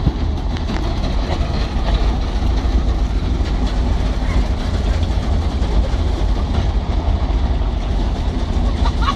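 Garbage truck engine running, a steady low rumble.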